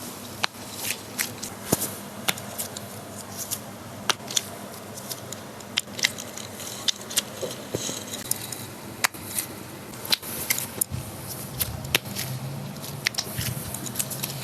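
Irregular sharp clicks and pops over faint rustling, many through the stretch, from hands working a body through a chiropractic adjustment: joints cracking along with the handling of the body and clothing.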